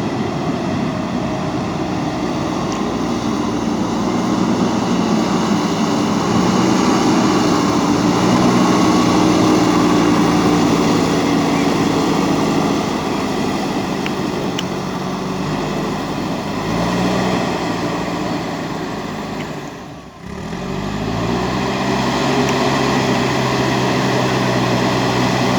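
Backhoe loader's diesel engine running as it works soil, its pitch shifting with the load. About three-quarters through the sound drops out briefly, then the engine note climbs as it revs up.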